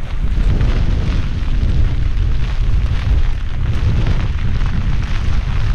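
Strong gusting wind buffeting the camera microphone: a loud, constantly fluttering low rumble with a rough rushing hiss above it.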